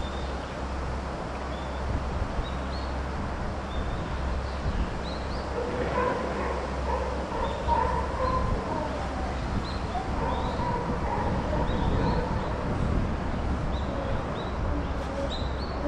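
Chimpanzee giving a series of drawn-out, pitched calls, starting about six seconds in, over a steady low hum.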